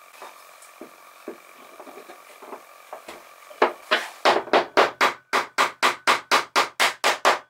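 Hammer striking wood: a few light taps, then a fast, even run of about fifteen blows, roughly four a second.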